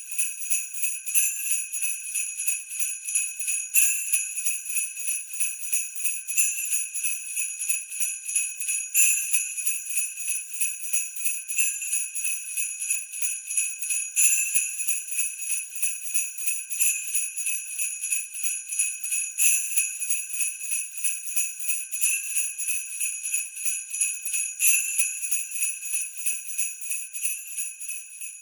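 Sleigh bells shaken in a steady, quick rhythm, the high jingling pulsing a few times a second with a stronger accent about every two and a half seconds.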